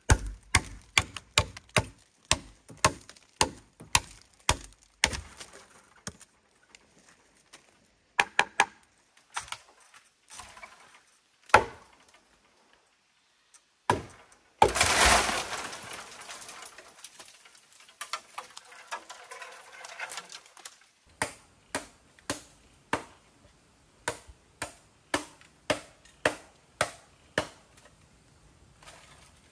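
Machete chopping into the base of a thick green bamboo culm, sharp strokes about two a second. About halfway through comes a long rustling crash as the cut bamboo falls through the leaves, then the chopping starts again at a slightly slower pace.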